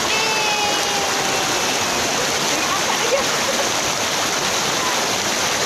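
Waterfall water rushing in a steady, unbroken hiss. A faint held tone trails off in the first second and a half.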